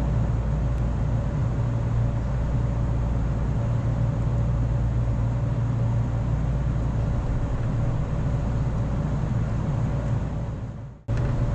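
Steady running rumble inside the cabin of a 455-series electric train, with a faint constant hum, as it runs into a station. The sound drops away and cuts out briefly just before the end.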